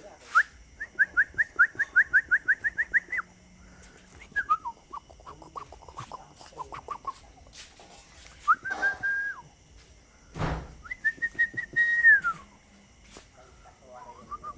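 Whistling used to call a dog. It opens with a quick run of short rising chirps, about five a second, then a string of falling chirps, then a few short held notes, the last one dropping in pitch at its end.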